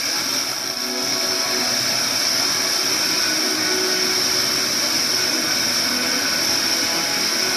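Steady FM static hiss from a Marantz ST-50 tuner on 94.9 MHz, with faint traces of a distant station's audio showing through the noise: the sign of a very weak signal from a transmitter far beyond normal range.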